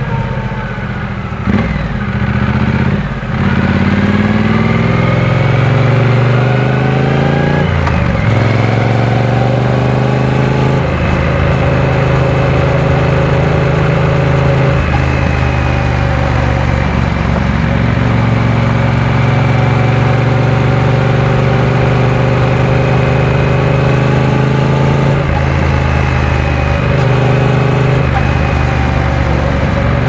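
Triumph Speed Twin 900's parallel-twin engine under way, its pitch climbing as it accelerates. It drops back sharply with a brief dip in loudness at each upshift, around one and a half, three and eight seconds in. After that it runs more steadily with smaller rises and falls in revs.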